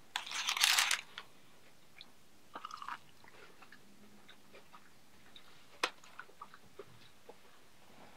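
Crunch of crisp, cider-battered fried cod being bitten into, a loud crackle lasting under a second. A shorter crackle follows about two and a half seconds in, then a sharp click near six seconds and a few light clicks after it.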